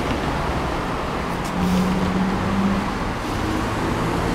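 Steady street traffic noise, with a low hum standing out from it for about a second in the middle.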